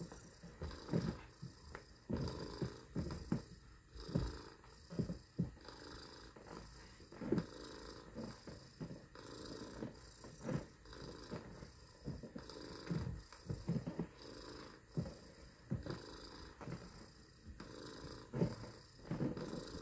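A person imitating a cat's purr: rough, rattling purrs from the throat in short runs, repeated about once a second or so.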